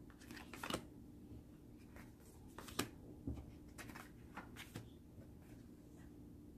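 Oracle cards being handled: several faint swishes and light taps of card stock as cards slide off the deck and are set down.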